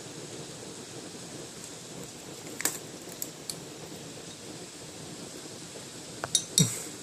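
Steady hiss of heavy rain. Sharp clicks break in about two and a half seconds in, and a louder cluster of knocks comes near the end.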